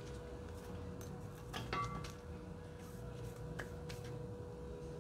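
A few sharp clicks, with a brief ringing clink among them about a second and a half in and another click past three and a half seconds, over a steady faint hum and low rumble.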